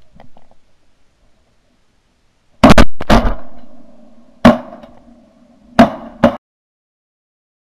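A string of shotgun shots at flying ducks, fired from the gun carrying the camera: two or three blasts in quick succession a little over two and a half seconds in, then single shots about a second and a half apart, each with a short echoing tail.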